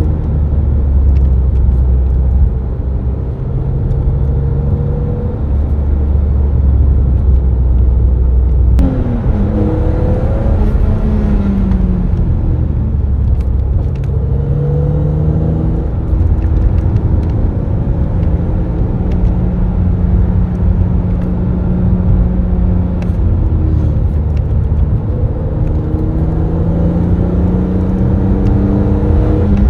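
The 2000 BMW Z3 M Roadster's 3.2-litre naturally aspirated inline-six, heard from the driver's seat as the car is driven. Its revs climb and drop several times through gear changes, with a sudden shift about nine seconds in. It holds a steady pitch for a while, then climbs again near the end.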